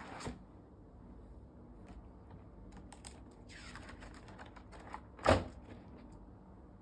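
Pages of a spiral-bound activity book being turned over: a swish at the start, a few light clicks, then a louder, short flap a little over five seconds in as a page comes down.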